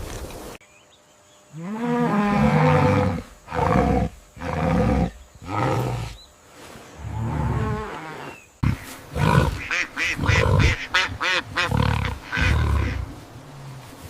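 A series of animal calls: several drawn-out pitched calls, then, after a sudden change, a quicker run of short calls.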